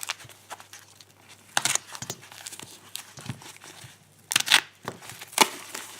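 Packaging being handled and unwrapped by hand: short bursts of crinkling and tearing, the loudest a little past four seconds in.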